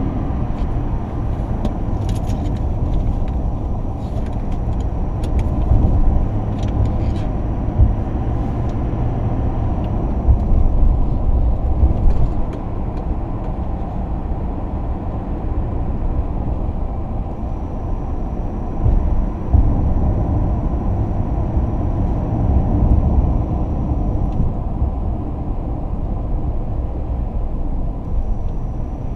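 Truck driving on a road, heard from inside the cab: a steady low rumble of engine and tyre noise. A few light clicks and rattles come in the first several seconds.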